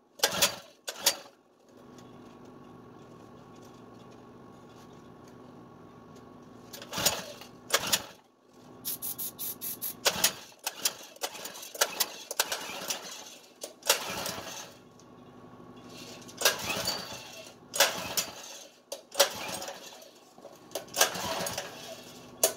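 Recoil pull-starter of a Baja 196 single-cylinder four-stroke mini bike engine yanked again and again, each pull a short loud burst, with the engine trying to start but not settling into a run. A quick run of rapid clicks comes in just before the pulls begin.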